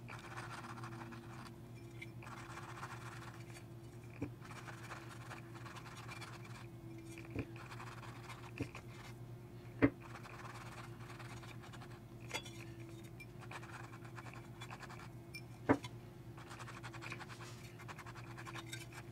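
Cotton swab rubbing around the edge of a woofer cone, a faint scratching as it picks up old foam and glue residue. Several sharp clicks break in, the loudest about ten seconds in, over a faint steady hum.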